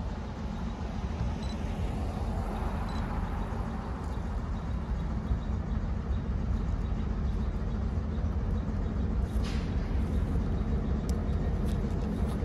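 Diesel freight locomotive rumbling, slowly getting louder, with a brief hiss about three quarters of the way through.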